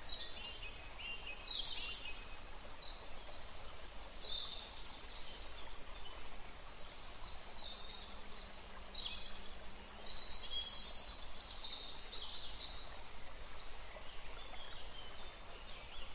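Small birds chirping and twittering, short high calls coming every second or so, over a steady hiss.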